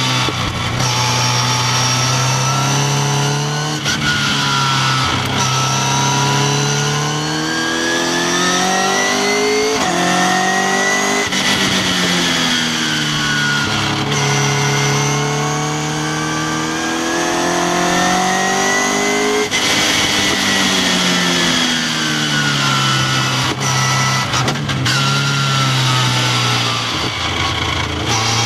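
Westfield sports car's engine heard from its open cockpit, revving up through the gears with short breaks at each upshift, then dropping in pitch as it slows for the corners, several times over. Steady wind rush over the microphone underneath.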